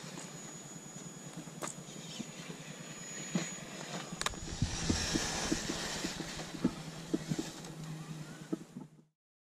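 Traxxas TRX-4 RC crawler's electric motor and drivetrain humming as it crawls over roots and sand, with scattered sharp ticks and crunches from the tyres and a louder scrubbing noise about halfway through. The sound cuts off sharply near the end.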